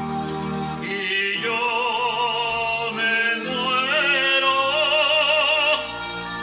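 A Spanish love song with a voice holding two long notes in operatic style with strong vibrato over sustained instrumental backing. The second note ends about six seconds in, and the backing carries on more quietly.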